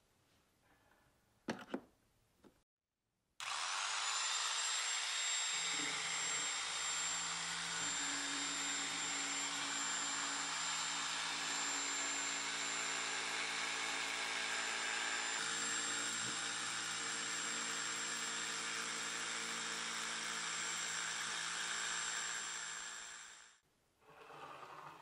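Electric foam cutter with a vertical reciprocating blade running steadily as it cuts through a sheet of upholstery foam, with a high whine over the motor noise. It starts a few seconds in with a short rising whine and stops shortly before the end, after a couple of light knocks at the start.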